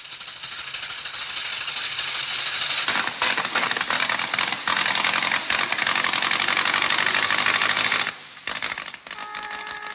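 A loud, dense rattling hiss, thick with fine clicks, that stops suddenly about eight seconds in. A few steady held notes follow near the end.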